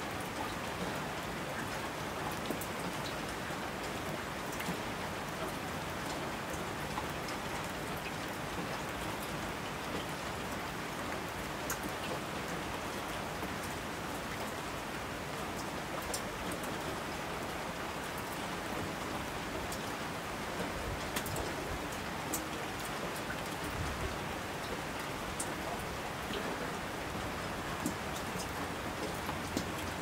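Heavy rain falling: a steady hiss with scattered sharp ticks of individual drops.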